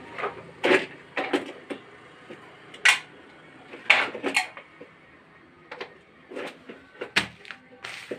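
Irregular clatter and sharp knocks of plastic toys being handled and knocked together on a hard cement floor by a small child, about a dozen knocks, the loudest about three and four seconds in.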